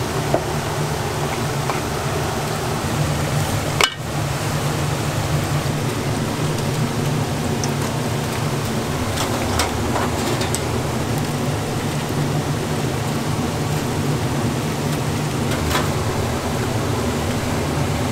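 Hot oil in a large deep-frying pan sizzling steadily as battered pieces fry, with a few sharp clicks on top, the loudest about four seconds in.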